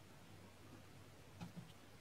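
Near silence, with two faint clicks about one and a half seconds in, from a finger pressing a push button on the Andonstar AD409 digital microscope's control panel.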